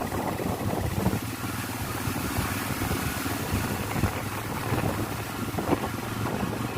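Motorcycle engine running steadily while riding, with a constant hum under a haze of wind and road noise.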